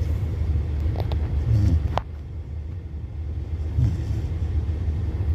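Labrador puppy snoring softly in its sleep, a short snore about every two seconds, over the steady low rumble of a car's cabin. A few sharp clicks come about a second in and at two seconds.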